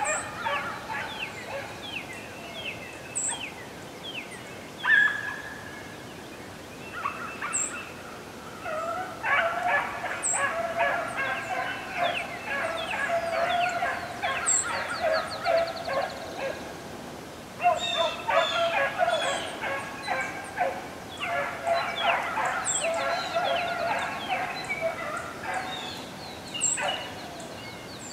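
A pack of rabbit hounds baying while running a rabbit, many voices overlapping. The cries are scattered at first, then build to a steady chorus about a third of the way in, with a brief lull near two-thirds.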